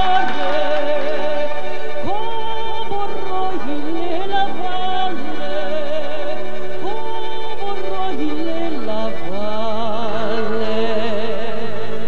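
A woman singing a slow song with wide vibrato into a microphone, accompanied by a Romanian instrumental ensemble.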